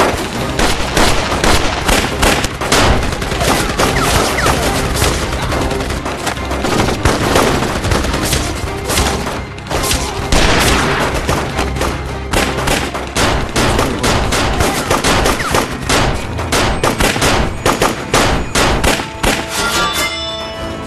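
Gunfire from a staged gunfight: many rapid shots and bursts in close succession, with a music score underneath. Near the end the shots thin out and the music comes forward.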